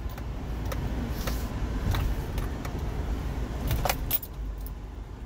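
Subaru car driving slowly over a rough, rutted dirt road, heard from inside the cabin: a steady low rumble of engine and road, with scattered clicks and rattles as the car bumps, the loudest about four seconds in.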